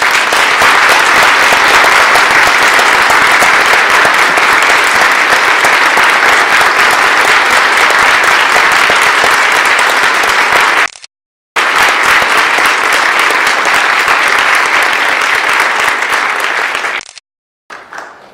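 Church congregation applauding, loud and sustained. The sound cuts out completely for a moment twice, about two-thirds of the way through and near the end.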